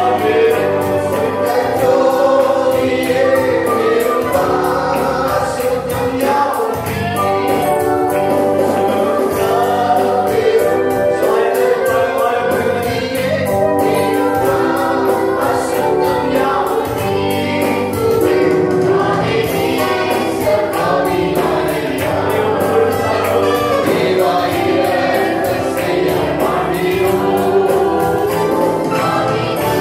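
A group of women singing a Tamil Christian worship song together, over instrumental accompaniment with a steady beat.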